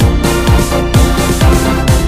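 Electronic background music with a steady beat of deep bass kicks that drop in pitch, about two a second.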